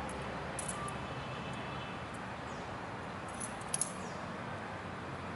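Small metal coins clicking against each other in the hands, as a few light, sharp clinks, the loudest pair near the end, over a steady outdoor background hiss.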